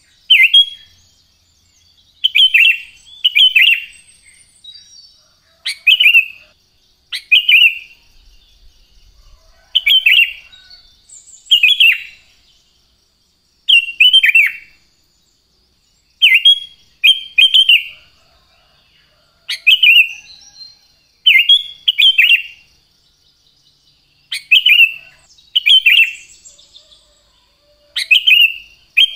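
Sooty-headed bulbul singing: short, loud phrases of quick falling whistled notes, repeated about every two seconds, over a faint steady high hiss.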